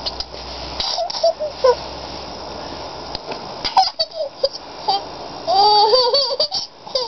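Young child giggling in short high squeals, with a longer wavering squeal about two thirds of the way through.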